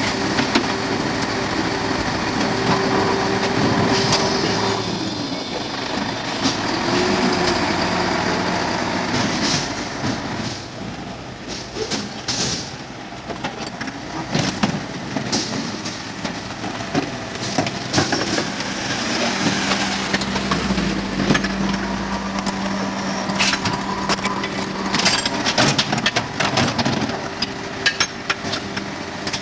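Faun Variopress rear-loading garbage truck at work: engine and hydraulics running, with a steady whine that drops away about five seconds in and a lower steady hum later. Repeated metal clanks and knocks through the second half come from the bins being handled at the loader.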